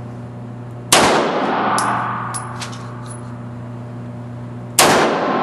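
Two semi-automatic pistol shots, about four seconds apart, each a sharp crack followed by a ringing echo that dies away.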